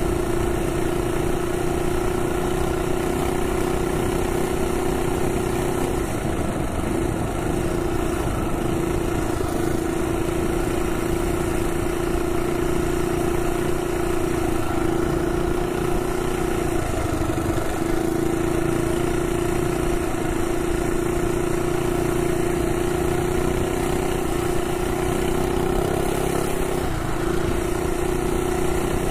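Minibike's Predator Ghost single-cylinder four-stroke engine running steadily under way at cruising speed, its pitch held nearly constant with a few brief wavers.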